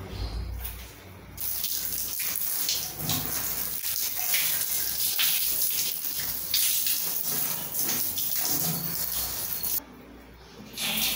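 Shower water spraying onto a long-haired cat's fur, a steady hiss that starts about a second and a half in and cuts off shortly before the end.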